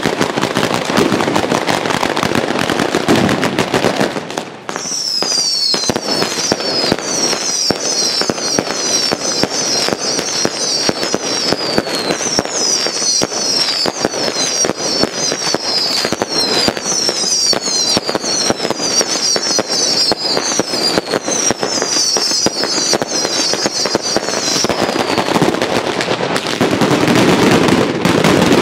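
A batteria, a chain of Italian firecrackers, goes off as a dense, rapid, continuous run of sharp cracks. For most of the stretch it is joined by high whistles, each falling in pitch and repeating over and over.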